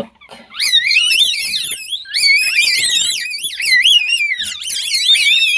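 Several newborn Asian palm civet kits calling at once: high-pitched squeals that waver up and down in pitch and overlap almost without a break.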